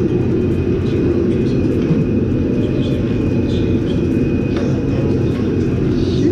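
A steady low rumble, like a machine or fan running, with a thin high whine above it and a few light clicks. It holds level throughout.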